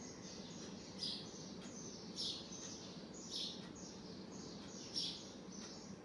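Faint high chirping, like a small bird, repeating about every half second to a second over a low steady hiss.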